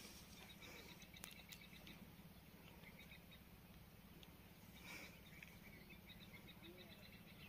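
Near silence: faint outdoor ambience with a low steady hum and scattered faint high chirps, with a slight swell about five seconds in.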